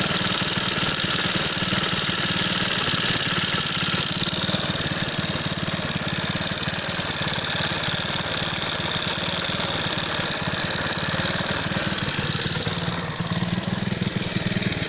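Alpha moped's single-cylinder four-stroke engine running with a rapid, steady metallic knock, picked up with the microphone held close to the engine. The owner believes the knock is most likely the piston striking a valve after the engine was run low on oil.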